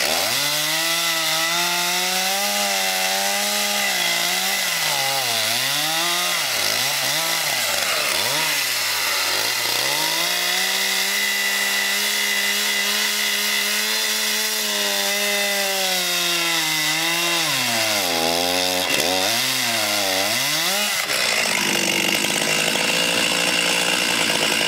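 Stihl two-stroke chainsaw cross-cutting a log. The engine pitch sags again and again as the chain bogs down in the wood and rises between cuts. About three seconds before the end, the pitch swings stop and the sound turns steadier.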